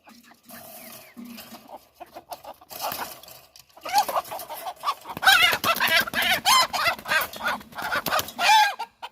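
Chickens clucking and squawking, a dense run of loud, rapid calls from about four seconds in after a few quieter sounds. The birds are being caught and handled to have their wings clipped.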